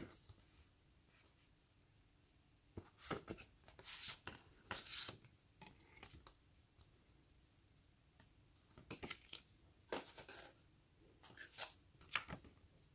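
Paper and thin cardboard being handled: a cardboard CD sleeve opened and a folded paper leaflet pulled out and unfolded, heard as several short rustles with quiet gaps between.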